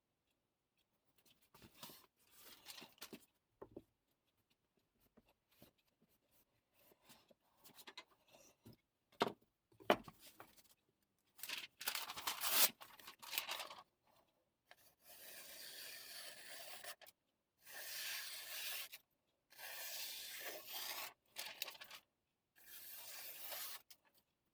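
A yanagiba blade worked in long rubbing strokes, four in a row in the second half, each a soft hiss lasting about a second and a half. Scattered light knocks and handling noises come first.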